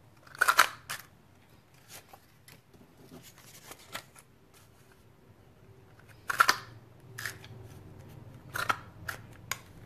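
Stampin' Up! Scallop Tag Topper paper punch snapping through designer paper: three loud, sharp snaps, about half a second in, near six and a half seconds and near nine seconds, with lighter clicks and paper handling between them.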